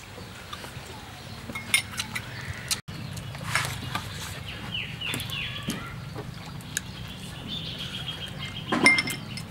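Metal spoon clinking against ceramic soup bowls in scattered sharp ticks, the loudest near the end, with small eating sounds. High chirping animal calls sound in the background, a few short falling ones midway and a longer one near the end.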